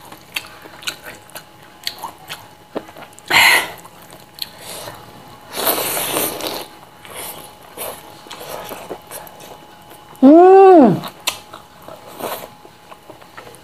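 Close-up mouth sounds of eating by hand: wet chewing and lip smacking, with a sharp bite about three seconds in and a longer noisy stretch around six seconds as food is pushed into the mouth. About ten seconds in comes a brief hummed vocal sound that rises and falls in pitch, the loudest sound here.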